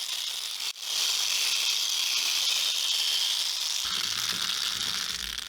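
3D-printed plastic rainstick with balls trickling through its gyroid infill: a steady rushing, rain-like hiss. There is one short gap less than a second in, and the hiss tails off near the end.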